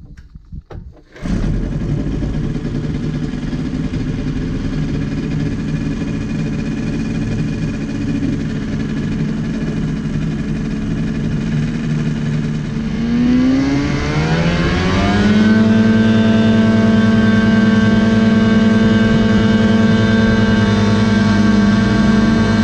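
Star Flight TX 1000 ultralight's engine and pusher propeller being started: a few short sputters, then the engine catches about a second in and idles steadily. Around the middle it is throttled up, the pitch rising over a couple of seconds, then it holds steady at high power for the takeoff roll.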